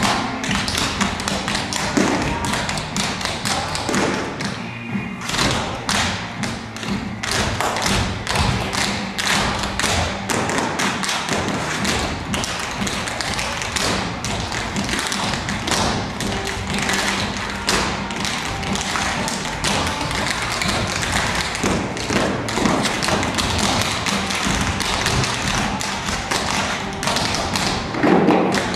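A group of dancers' feet stomping and tapping on a stage floor in a fast, dense rhythm.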